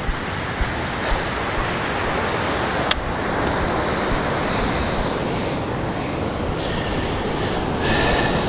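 Steady rush of surf and wind on an open beach, with wind rumbling on the microphone, and one sharp click about three seconds in.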